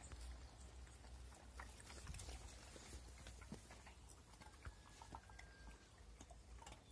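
Faint, irregular clicks and ticks over a low hum: dogs eating, the small sounds of chewing and of food against a bowl.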